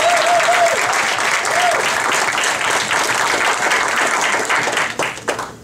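Audience applauding, with a few voices cheering in the first couple of seconds. The applause dies away near the end.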